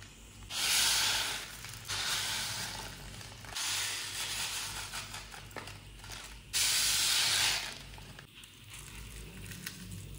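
Pickle spices frying in a hot pan, sizzling in stretches of one to three seconds, loudest about half a second in and again near the seven-second mark.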